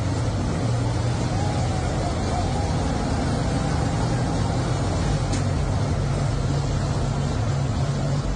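Steady rumble of a motor vehicle's engine, even in level throughout.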